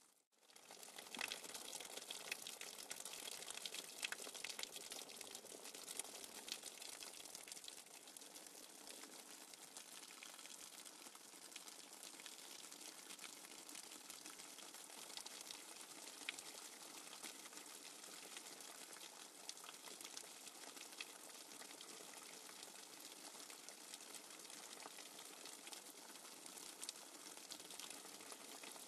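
Soft, steady water sound from a nature-sound background track: a crackling hiss dense with fine patter. It drops out briefly at the start and resumes within half a second.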